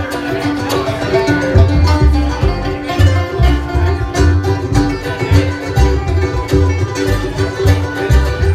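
Live band music: a banjo picking over electric guitars and an upright bass, with a steady beat in the low end.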